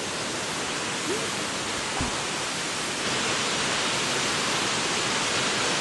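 Steady rush of running water, a little brighter from about three seconds in, with a soft thump about two seconds in.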